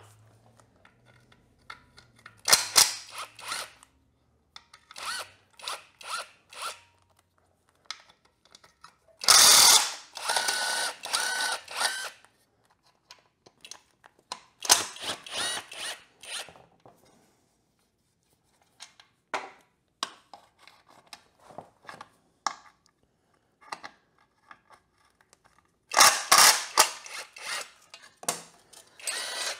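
Cordless impact driver running out the skid plate bolts in four short runs, the longest and loudest about three seconds, with light metal clinks between the runs.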